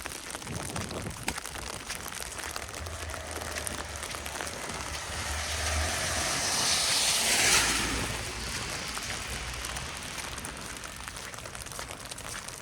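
A vehicle passing on a wet, slushy road: a low engine hum, then tyre hiss that swells to a peak about seven and a half seconds in and fades away. Under it is a steady patter of falling wet snow.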